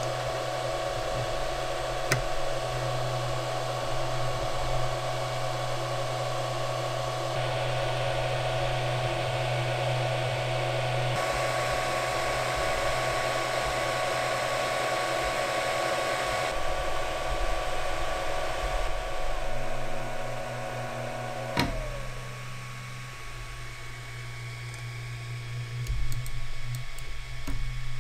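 Voxelab Aquila 3D printer running a print: a steady whir of its cooling fans, carrying a few steady hum tones whose mix shifts a few times. A little over two-thirds through there is a click, one tone slides down and the whir drops quieter, with a few light clicks near the end.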